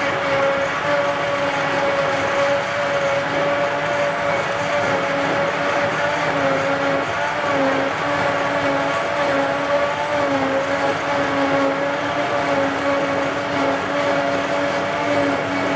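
John Deere 8600i self-propelled forage harvester working under load, picking up grass and blowing the chopped grass into the trailer beside it, with the John Deere 6095R tractor pulling alongside. A steady, loud machine drone with a humming tone that wavers slightly in pitch.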